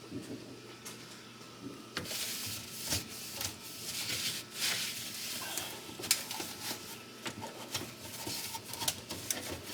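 Scrubbing and handling greasy range-hood parts, a rough rubbing sound with irregular clicks and knocks that starts about two seconds in.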